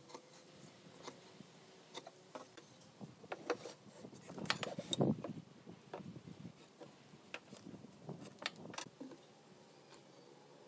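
Scattered light knocks and clicks of a steel square, a marker pen and a wooden board being handled on a wooden workbench, the loudest few about halfway through.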